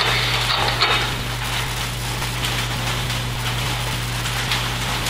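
Steady hiss with a low electrical hum underneath, the background noise of the recording itself, a little brighter in the first second.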